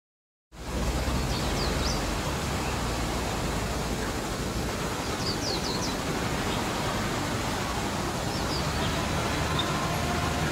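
Steady outdoor background noise, heaviest in the low end, starting abruptly about half a second in. Over it come three brief clusters of thin, high bird chirps, each a quick run of three or four notes, a few seconds apart.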